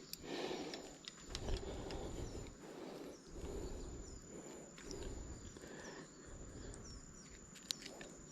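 Soft footsteps or rustling through bankside brush, about one step a second. Under them runs a thin, steady high insect whine, with a few faint bird chirps.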